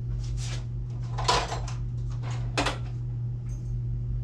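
Tools and cylinder parts handled on a workbench: three short clatters or scrapes, the loudest about a second in, over a steady low hum.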